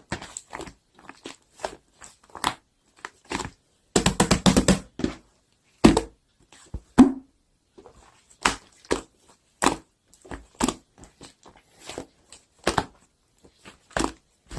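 Two-layer mixed slime being squished and pressed by hand, giving irregular short pops and clicks, with a fast run of them about four seconds in.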